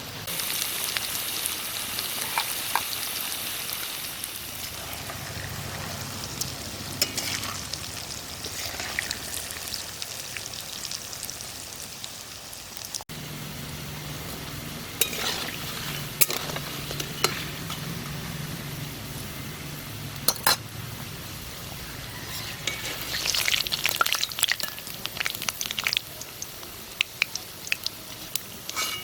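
Dal pakoras (lentil fritters) sizzling as they deep-fry in hot oil, with scattered sharp clicks of a utensil against the pan.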